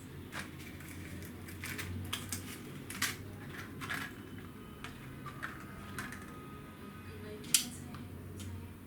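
Irregular clicks and taps of small plastic and metal parts being handled inside an opened Dell G5 5590 laptop during a RAM swap, about ten in all, the loudest near the end.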